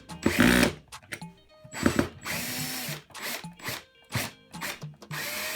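Power drill run in several short stop-start bursts, the motor spinning up each time the trigger is pulled, as used to fit curtain-rod hardware.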